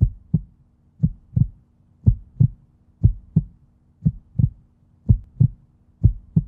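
Heartbeat sound effect: pairs of low thumps (lub-dub) about once a second, over a faint steady low hum.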